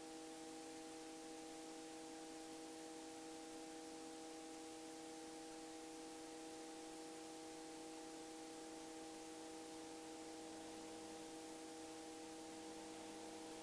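Faint steady hiss with a hum of several steady tones, unchanging throughout.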